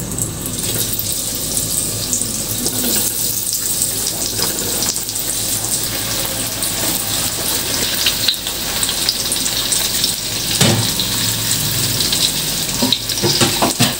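Breaded tofu croquettes sizzling steadily as they deep-fry in hot oil in a wok. A few short knocks near the end as a spatula turns them.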